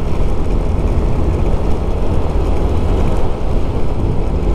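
Steady rumble of wind and road noise on a motorcycle-mounted camera while riding, with no distinct changes.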